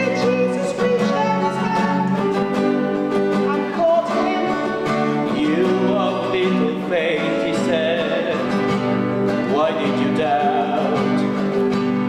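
A voice singing a melody over plucked acoustic guitar.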